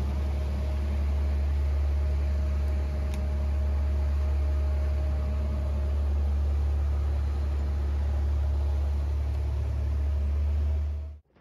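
Sportfishing boat's engine running steadily underway, a loud, even low drone over a steady hiss of wake and wind; it cuts off suddenly near the end.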